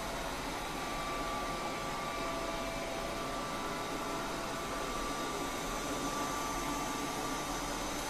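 BL608 robot vacuum cleaner running steadily, a constant suction hiss with faint steady whining tones from its motors, while it works in spot-clean mode over a patch it detected as dusty.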